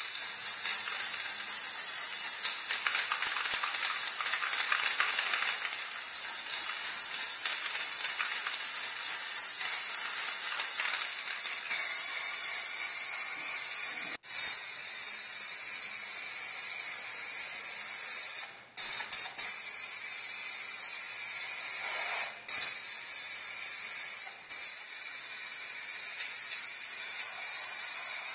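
Spray paint hissing steadily as the fan's housing and knobs are coated, with a few brief breaks between passes.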